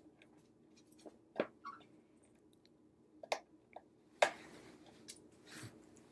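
A parrot's beak nibbling and clicking on a hard object, scattered small taps with a sharper knock about four seconds in.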